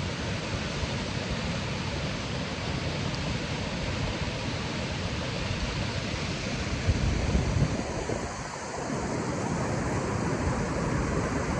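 Wind buffeting the microphone outdoors: a steady, rumbling rush with a couple of stronger gusts past the middle.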